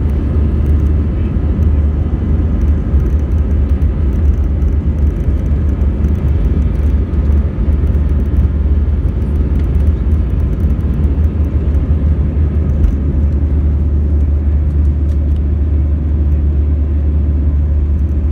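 Airbus A321 jet engines at takeoff thrust with the rumble of the takeoff roll, heard inside the cabin over the wing as a loud, steady, deep rumble.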